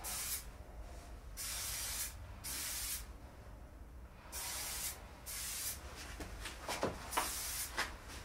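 An aerosol spray can hissing in several short bursts of about half a second each, with a few clicks near the end.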